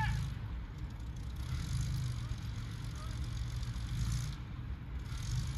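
Heavy vehicle engines running with a steady low rumble that swells and eases a little, from a stuck lorry and a small tracked armoured vehicle working behind it.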